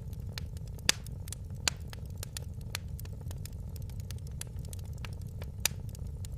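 Wood fire in a fireplace crackling, with a steady low rumble of the flames and frequent sharp pops and snaps, the loudest about a second in and again near the end.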